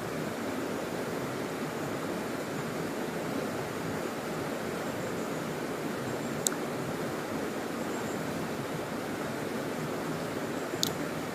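Small stream flowing, a steady rushing of water. Two short sharp ticks cut through it, about six and a half seconds in and near the end.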